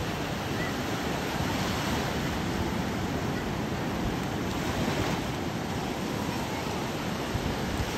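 Small ocean waves washing up a sandy beach: a steady rush of surf that swells slightly now and then.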